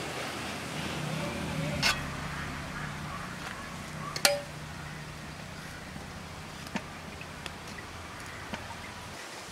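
A metal spoon clinks sharply against a steel vessel twice, about two and four seconds in, followed by a few lighter taps, over a low steady hum.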